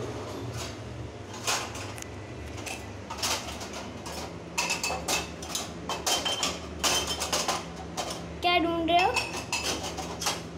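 Steel dishes and utensils clinking and clattering as a hand rummages in a kitchen cabinet's utensil rack. The knocks are sparse at first and get busier about halfway through, with a brief voice near the end.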